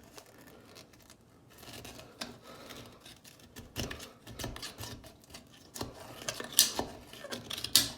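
Scraping and scrubbing at hard-water scale in the rim holes and jet hole of an emptied toilet bowl, in irregular strokes, the sharpest near the end. The scale clogging these holes is what makes the toilet flush slowly.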